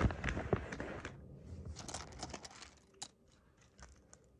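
Plastic blind-bag packaging being handled: crinkling and rustling with light clicks, fading after about a second and a half, and one sharper click about three seconds in.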